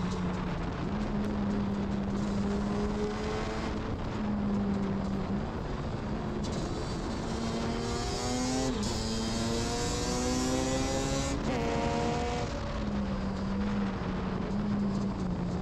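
Yamaha Banshee 350's twin-cylinder two-stroke engine running under way at a steady pitch. Partway in, the revs climb twice, each time dropping sharply, about 9 seconds and 11.5 seconds in, with rushing wind growing louder. The engine then settles back to a steady pitch.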